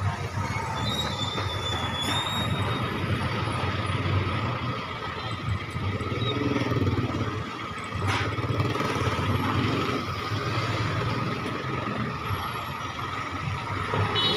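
Vehicle engines idling and creeping in a slow traffic queue, the nearest a pickup truck right alongside, with a steady low hum.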